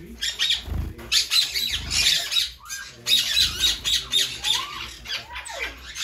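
Many caged birds squawking and chirping at once, a dense overlapping chorus of shrill calls several times a second with a few short swooping notes.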